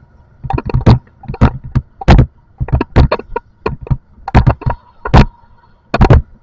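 Loud, sharp bangs and knocks in irregular clusters of two to four, about a dozen in all over some five seconds, over a faint steady hum.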